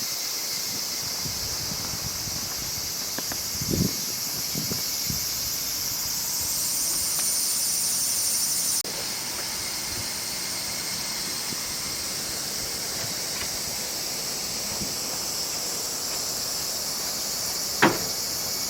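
Summer insect chorus: steady, high-pitched chirring. A higher insect note joins about six seconds in and cuts off abruptly near nine seconds, and a short sharp knock comes near the end.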